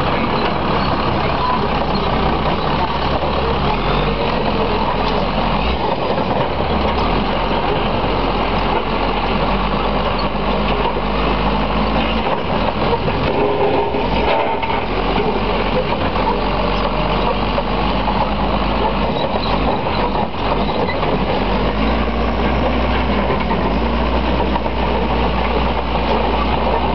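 Diesel engine of a Case crawler dozer running steadily at a constant level while the machine is driven.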